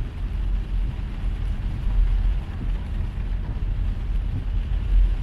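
Steady low rumble of a car driving in heavy rain, heard from inside the cabin: road and engine noise with a fainter hiss of rain over it.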